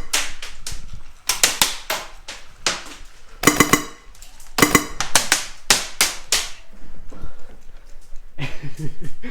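Airsoft gun firing in short rapid bursts, about seven bursts a second or so apart, followed by a quieter stretch.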